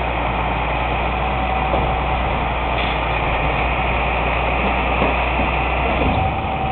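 Heavy truck engine running steadily with a low drone, a thin steady whine above it and a few light knocks.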